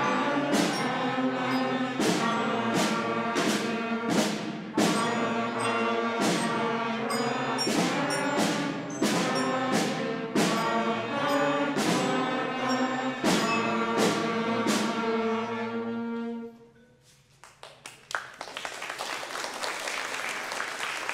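Beginner school concert band of flutes, clarinets, saxophones, trumpets, French horns, trombones, mallets and snare drum playing a simple tune in steady, evenly spaced notes. The band stops about three-quarters of the way through, and after a short hush the audience starts clapping.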